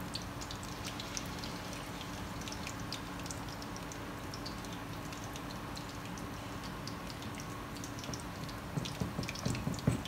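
Hot oil sizzling and crackling in woks as spring rolls and battered bananas deep-fry, a steady fine spatter with a low hum underneath. A few louder low thumps come near the end.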